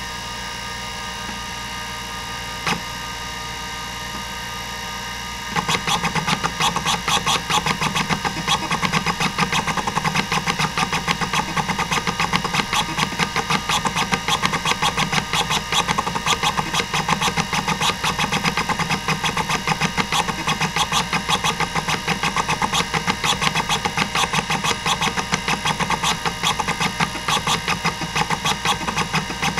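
Hitachi DK505-2 26 MB stepper-motor hard drive: the spindle runs with a steady whir and gives one click about three seconds in. From about five seconds in, the stepper head actuator chatters in a fast, continuous run of clicks as it does random seeks across the platters.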